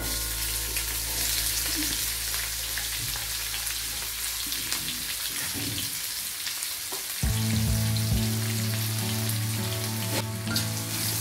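Chopped onions and green chillies frying in hot oil in a wok: a steady sizzle.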